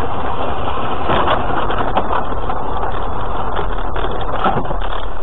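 Dashcam car's engine and tyre noise inside the cabin on a snowy road, loud and steady, with a few sharp knocks about one, two and four and a half seconds in.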